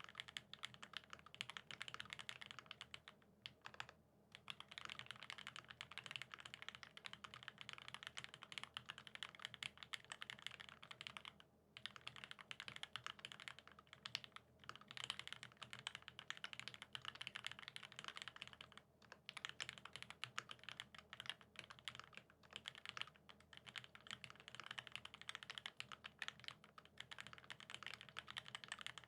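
Continuous typing on a Satisfaction75 mechanical keyboard with a top-mounted brass plate, lubed vintage Cherry Top SP Star switches and GMK keycaps: a fast, even run of keystroke clacks, broken by brief pauses a few times.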